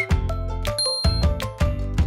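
Background music with a steady beat, with a short high ding a little under a second in.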